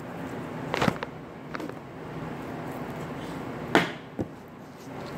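Knife and meat trimmings knocking on a cutting board while silver skin is cut from a beef tenderloin: four short knocks, the loudest nearly four seconds in, over a steady low hum.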